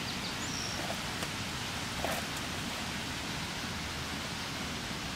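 Steady, even outdoor hiss, with a few faint scuffs of small footsteps on a rocky dirt trail and a brief high chirp about half a second in.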